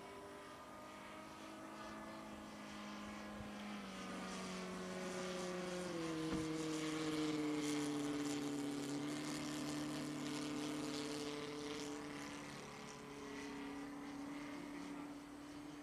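Model airplane's 53 cc horizontally opposed four-stroke gasoline engine running steadily with its propeller at low throttle. Its pitch steps down twice, about four and six seconds in. The sound swells towards the middle and then fades.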